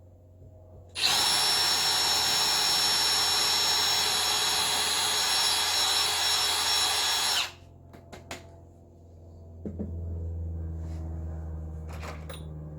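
Electric drill running steadily for about six seconds as it bores a hole in the wall for a wall plug, its motor whine sitting above the grinding, then stopping abruptly. A few clicks follow, then a low steady hum.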